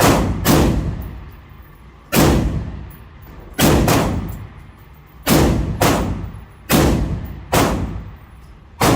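Gunshots from other shooters on the range: about ten loud, irregularly spaced shots, some in quick pairs, each with a short echoing tail.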